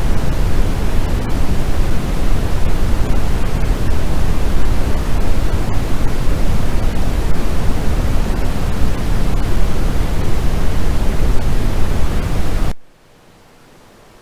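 Steady synthetic white-noise track, a loud even hiss weighted toward the low end like pink noise. About 13 seconds in it cuts off suddenly, leaving only a much fainter hiss.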